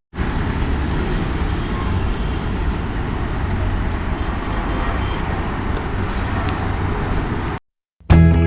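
Steady road traffic noise with a low rumble, which cuts off suddenly about seven and a half seconds in.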